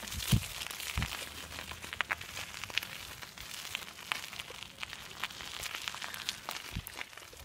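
Faint scattered clicks and crackles over a light hiss, with a few soft thumps about a second in and near the end: movement and handling noise around the camera.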